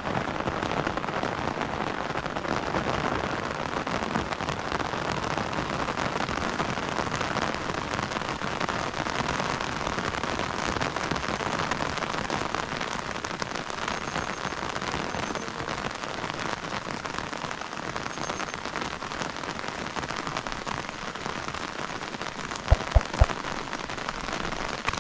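Steady rain falling. Near the end come a few sharp knocks.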